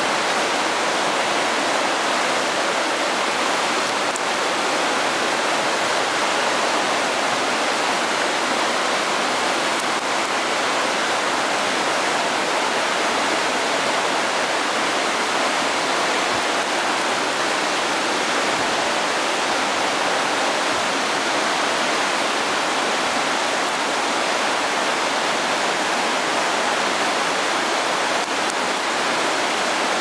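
A fast mountain river rushing through a rapid: a steady, unbroken whitewater rush.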